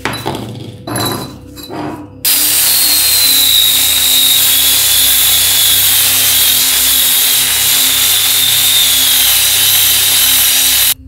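A few metal clinks and knocks. Then, about two seconds in, a power tool starts suddenly and runs steadily with a high whine, stopping abruptly near the end.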